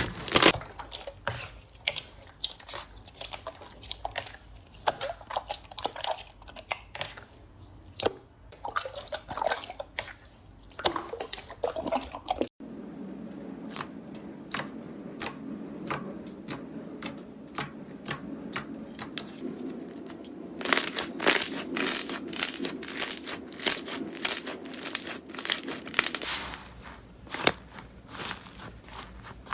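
Slime being squeezed and pressed by hand: a dense run of sharp crackles and small sticky pops. About halfway through it changes abruptly to another handling sound, with a low steady hum beneath the crackles.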